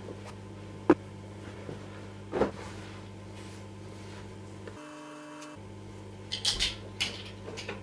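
Quiet room tone with a steady low electrical hum, broken by a sharp click about a second in and a few brief knocks and rustles later on.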